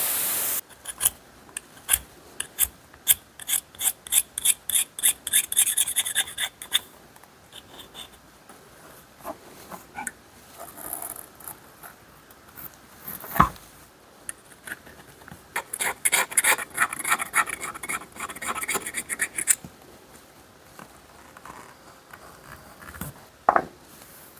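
Rusty steel pliers being scrubbed by hand: quick back-and-forth rasping strokes, about three a second, in two runs with a pause between, and a single sharp knock in the middle.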